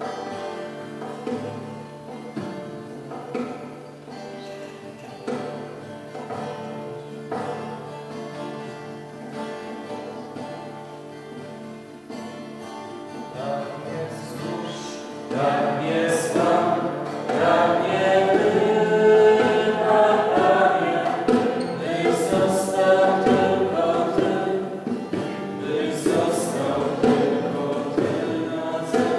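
Background music: quiet instrumental music over a low held note, then singing voices come in about halfway through and the music grows louder.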